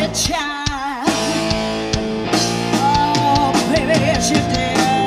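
Live blues-rock band playing a slow blues: electric lead guitar over bass guitar and drums, with wavering, held high notes.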